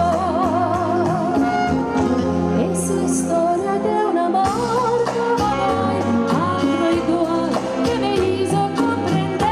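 Live music: a woman singing into a microphone with wide vibrato over keyboard accompaniment with a steady bass line.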